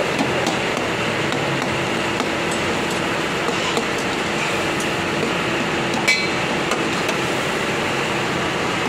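Slotted metal spoon scraping and clinking against a steel karahi as the lamb curry is stirred, over a steady rush from the high-flame gas burners. One louder, ringing clink comes about six seconds in.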